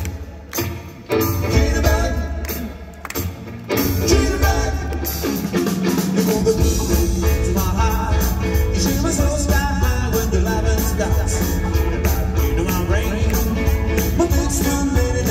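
Live retro swing and rock 'n' roll band playing with a singer. The band stops short a few times in the first few seconds, then settles into a steady driving beat with a heavy bass.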